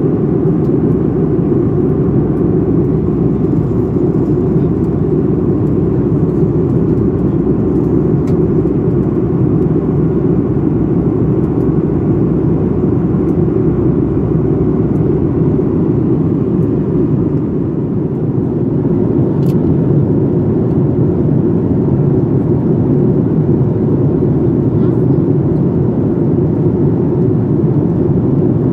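Steady in-flight cabin noise of a Boeing 737-800: a deep, even roar of airflow and its CFM56 turbofan engines, heard from a window seat over the wing.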